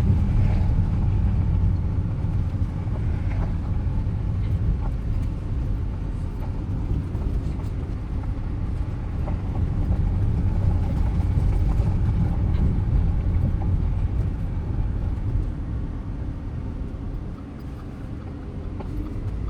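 Audi Q5 quattro driving: a steady low rumble of engine and road noise, easing off slightly near the end, with faint scattered ticks.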